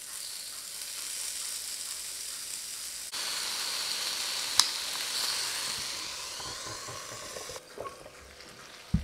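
Marinated chicken skewers sizzling on the hot plate of an electric contact grill, a steady high hiss with one sharp pop about halfway. The sizzle stops near the end, and the grill's lid comes down with a thump.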